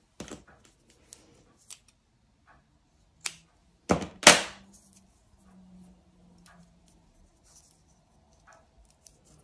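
Scissors cutting yarn: a few sharp snips, the loudest pair about four seconds in, with quiet handling of the yarn in between.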